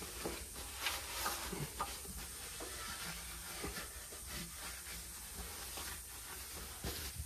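Faint rustling and wiping of paper tissue mopping up spilled fuel, with a few small handling clicks over a steady hiss.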